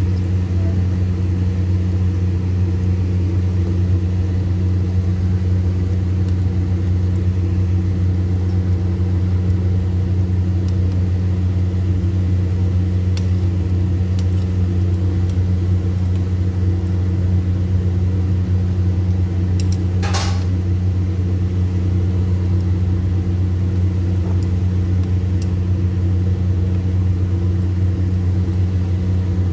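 Breaded cauliflower pieces frying in hot oil in a pan, a steady sizzle under a louder, steady low machine hum. A brief scrape about twenty seconds in.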